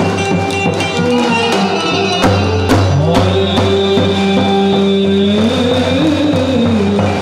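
Live Turkish folk dance music: a davul bass drum beating under a held melody line that slides between notes.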